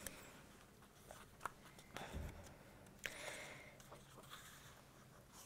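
Near silence: room tone with a few faint rustles and small clicks.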